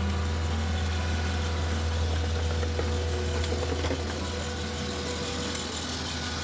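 Skid steer engine running steadily with a deep drone, easing slightly about four seconds in.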